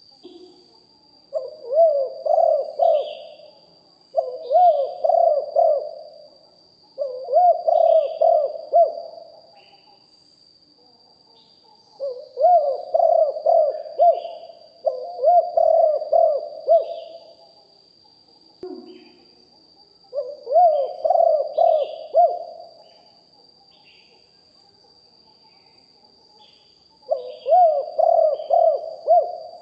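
Spotted dove cooing, seven phrases of about two seconds each, every phrase a run of rolling low coos, with pauses of a second to several seconds between them.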